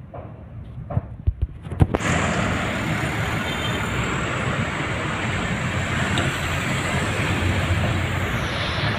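A few sharp knocks, then steady road traffic noise that starts abruptly about two seconds in and stays loud.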